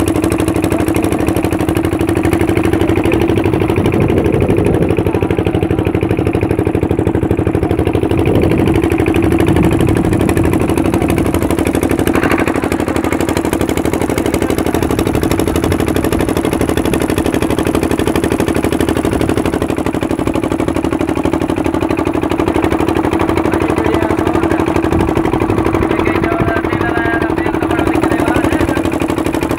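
A riverboat's engine running steadily under way, a constant drone with no change in speed.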